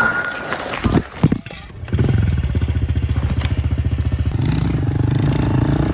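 Two knocks, then a small dirt bike's engine starts about two seconds in and runs with a fast, even putter, revving up a little about four seconds in as the bike pulls away.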